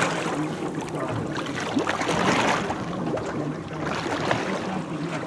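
Sea water sloshing and splashing against the hull of a drifting boat, with wind, surging at the start and again about two seconds in. A faint steady low hum runs underneath.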